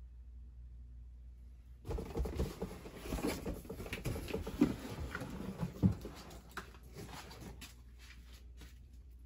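Irregular rustling and scraping with a few sharp knocks, starting about two seconds in and dying away about six seconds later, over a faint steady low hum: handling noise from things being moved about by hand.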